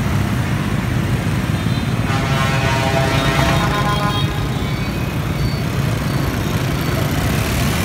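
Steady traffic noise at a busy intersection, mostly scooter and motorbike engines with cars, as a low continuous rumble. A pitched tone rises out of the traffic for about two seconds, starting about two seconds in.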